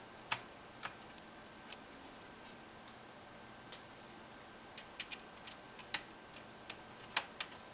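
Scattered light clicks and taps, about a dozen at irregular intervals, of hard laptop parts being handled and fitted during reassembly.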